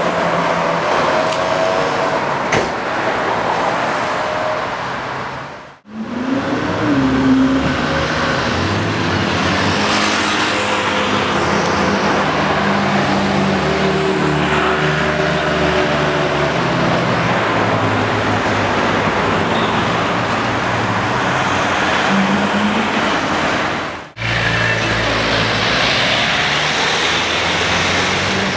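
Ferrari 458 Italia V8 engines driving by in street traffic, several clips joined together, with a short rise in revs a second or so after the first join. Two brief dropouts mark the joins between clips.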